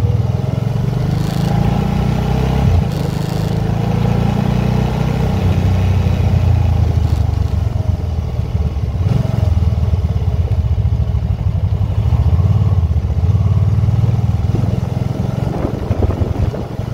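Can-Am motorcycle engine running steadily, its low note shifting a little now and then.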